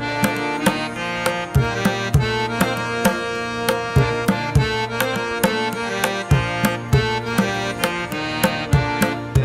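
Instrumental background music: a steady drum beat under sustained melodic notes.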